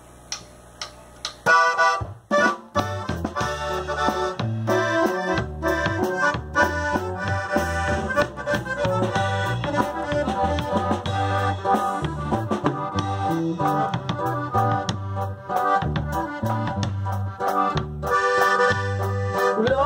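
Norteño band playing an instrumental intro: an accordion carries the melody over electric bass, guitar and drums. A few sharp clicks come first, and the band comes in about a second and a half in.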